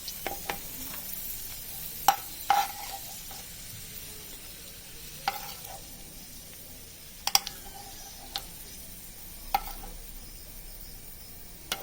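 Hot ghee and oil sizzling steadily in a pan as raisins fry, with a metal spoon stirring and knocking sharply against the pan about seven times.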